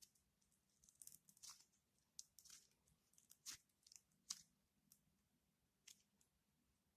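Slime being squished and pulled, giving faint sticky crackles and pops, busiest in the first half and thinning out toward the end.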